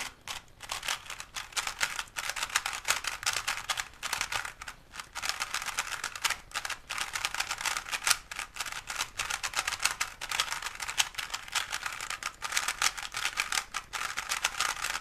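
A plastic speedcube being turned rapidly and continuously: its pieces click and clatter in quick, dense flurries, with a few brief pauses between runs of turns.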